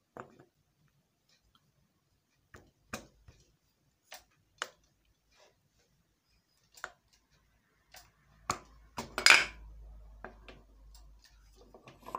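Scattered metal clicks and knocks as the handwheel of a tailoring sewing machine is fitted back onto its shaft, with a louder clatter about nine seconds in.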